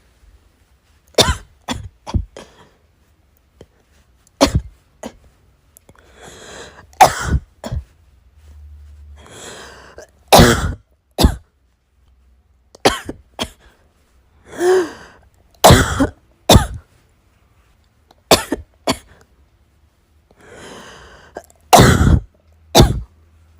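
A person in an uncontrollable coughing fit from cough-variant asthma: sharp coughs in clusters of two or three, with longer breathy inhalations between them.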